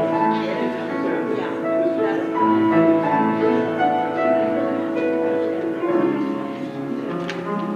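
Solo piano playing slowly, a melody of held notes over sustained chords.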